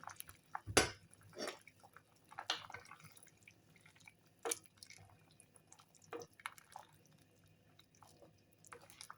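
Fish soup simmering on low heat in a small pot: faint, irregular bubbling pops.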